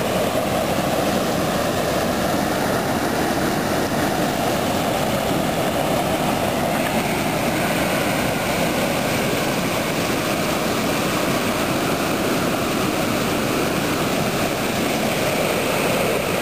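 Steady rushing of fast-flowing floodwater, an even roar of water noise.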